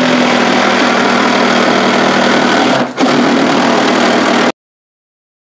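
Cordless reciprocating saw cutting through the wooden planks of a cable spool, running steadily with a brief dip near three seconds and stopping abruptly about four and a half seconds in.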